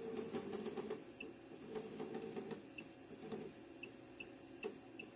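Faint, short high beeps at irregular intervals from the handheld programming panel of a JACK JK-T1906 pattern tacker as its arrow key is pressed to step the cursor. A few soft taps come in the first second.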